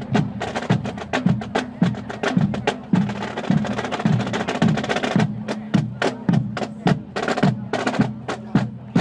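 Marching-band drums playing a cadence, with sharp regular strokes over low drum tones and a denser rolling stretch in the middle.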